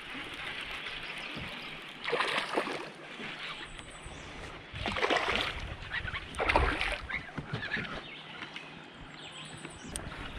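Water splashing in three surges, about two, five and six and a half seconds in, over a steady hiss of moving water.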